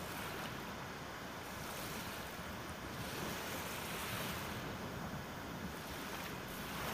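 Choppy sea waves washing, with wind, in a steady noise that swells and eases slowly.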